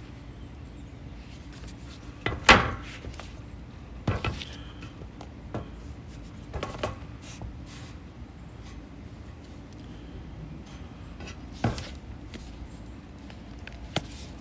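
A few sharp knocks and taps of hard objects being handled and set down on a desk, the loudest about two and a half seconds in, with a few more spread through the rest, over a steady low hum.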